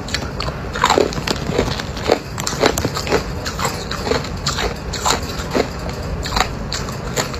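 Hard, clear ice cubes crunched between the teeth: many sharp, irregular crunches in quick succession.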